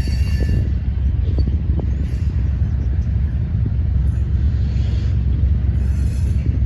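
Steady, loud low rumble of a moving vehicle.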